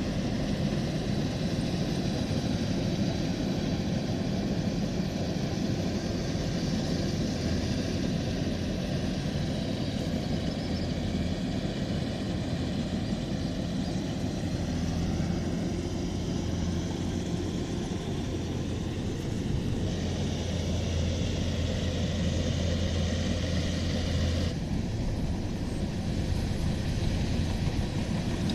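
Rice combine harvester running steadily, its engine and machinery making a continuous mechanical drone. About two-thirds of the way through, a deeper hum and a higher hiss swell for a few seconds, then cut back abruptly.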